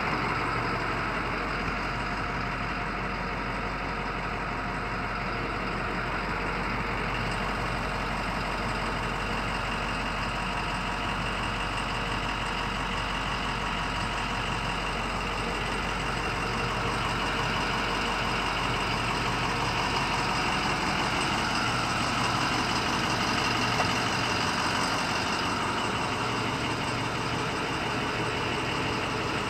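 International VT365 6.0-litre turbo-diesel V8 of a 2008 International MXT idling steadily.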